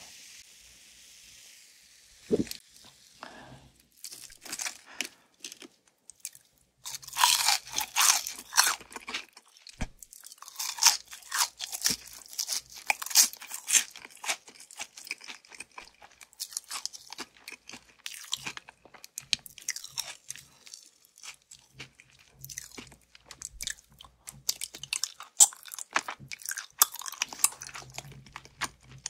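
Close-up crunching and chewing of crispy fried chicken: dense runs of sharp, crackling bites, starting after a few scattered clicks and a faint hiss that dies away in the first couple of seconds.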